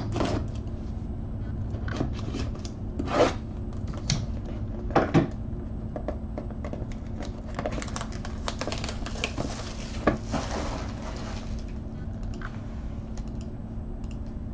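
A cardboard trading-card box being slit with a knife and opened by hand on a padded table: a few short scrapes and knocks, then a rustle lasting a few seconds.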